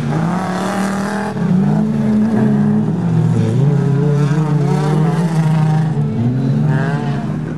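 Several autocross race cars racing past with engines revving hard, the engine notes overlapping and rising and falling with throttle and gear changes.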